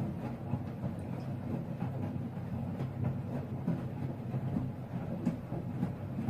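Miele washing machine running: a steady low mechanical hum and rumble with light clicks and clatter.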